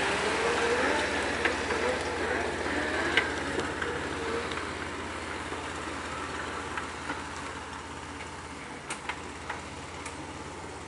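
Jeep Wrangler Rubicon's 4.0-litre straight-six running at low trail speed, a steady low rumble growing fainter as the Jeep pulls away. Scattered light cracks and ticks sound throughout.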